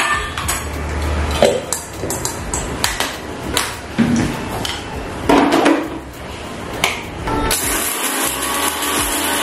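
Spoon knocks and scrapes as dry-roasted whole spices are tipped into a grinder jar. About seven and a half seconds in, an electric mixer grinder starts and runs steadily, grinding the dry spices to powder.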